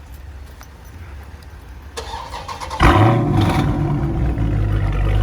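Dodge Charger Scat Pack's 392 (6.4 L) HEMI V8 with a Corsa exhaust on a cold start. The starter cranks about two seconds in, the engine fires with a loud flare just under a second later, and it then settles into a steady high idle.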